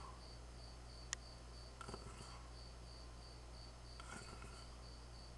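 A cricket chirping steadily in the background, about four short high chirps a second, with a single sharp click about a second in.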